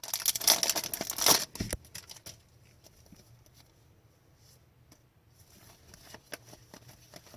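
A trading card pack's wrapper being torn open and crinkled for about the first two seconds, followed by faint light ticks of the cards being handled.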